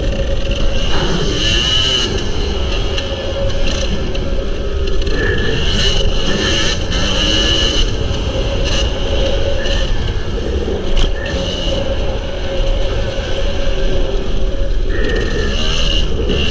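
Kawasaki KDX250 two-stroke single-cylinder dirt bike engine heard onboard while riding, its revs rising and falling as the rider works the throttle through the track.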